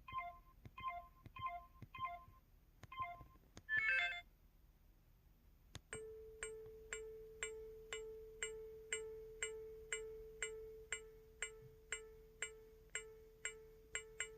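Camera sound effects of an MS700 mobile phone: short two-note electronic beeps about twice a second, a brief louder shutter-like burst about 4 s in, then a steady tone with regular ticks about twice a second, like a self-timer counting down.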